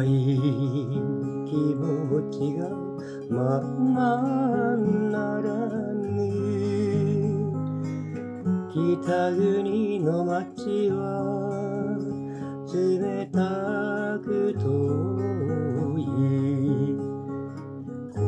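Steel-string acoustic guitar played as a slow ballad: strummed chords with a bass line under them. A melody with a wide vibrato runs over the chords from about three and a half seconds in.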